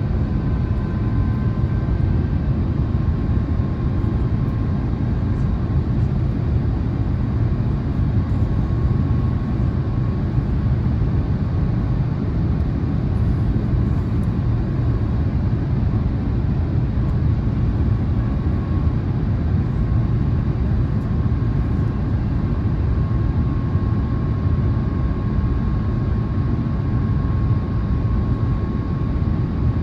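Steady cabin noise of an Airbus A350-1000 in flight, heard from inside the cabin: a deep rush of airflow and Rolls-Royce Trent XWB engines, with a faint steady whine that fades in and out.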